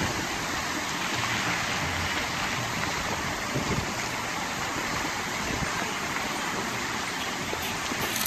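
Fountain water jets spraying and splashing down into a large pool: a steady rushing hiss of falling water.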